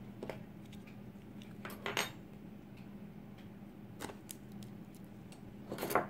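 A handful of light metallic clicks and clinks from a disassembled brass lock cylinder being handled, its pins already removed. The loudest clicks come about two seconds in and just before the end.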